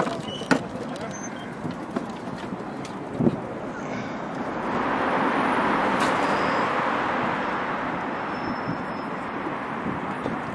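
Outdoor background of distant voices with a few sharp clicks, and a rushing noise that swells from about four seconds in, then fades.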